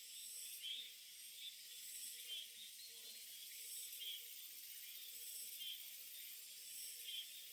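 Small birds chirping, short calls repeated about once a second, faint over a steady high hiss.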